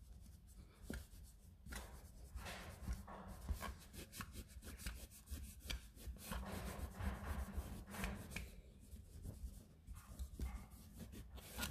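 Microfiber towel rubbed quickly back and forth by hand over a painted alloy wheel, working in cutting compound to take out small scratches and spots; a faint, rapid run of scrubbing strokes.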